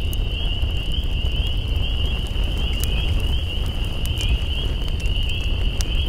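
Campfire crackling, with scattered sharp pops, over a steady low rumble. A continuous high pulsing trill of night insects runs underneath.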